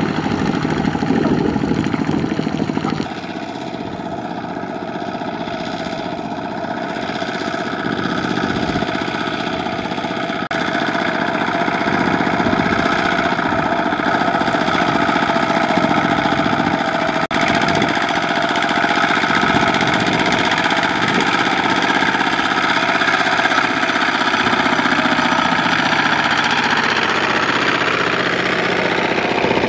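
Two-wheel walking tractors' single-cylinder diesel engines running steadily under load, pulling sack-laden trailers through deep mud. The sound shifts abruptly in level and tone three times as one engine gives way to another.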